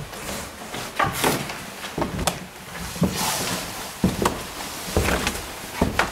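Footsteps on the stairs of an old house as people climb, an irregular thud every half second to a second, with a brief rustle of clothing close to the microphone about three seconds in.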